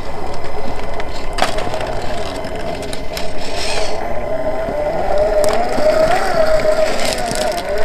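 Electric drivetrain of a Traxxas TRX-4 1/10-scale RC crawler whining as it crawls over rocky dirt, the pitch wavering with the throttle. Scattered clicks and crunches of the tyres on loose stones sound over it.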